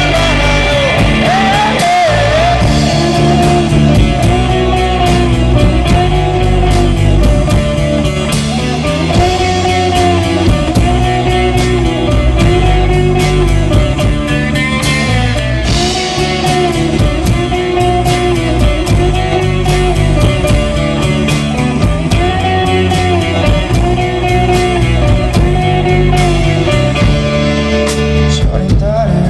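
Live rock band playing loudly on electric guitars, bass guitar and drum kit, with a melodic figure that repeats about once a second.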